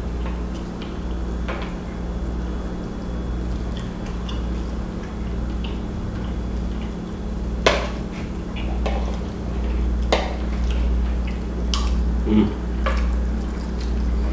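Eating sounds: a metal spoon scraping and clinking against a glass bowl of chicken and rice, with wet chewing and mouth sounds. A few sharper clinks come in the second half over a steady low hum.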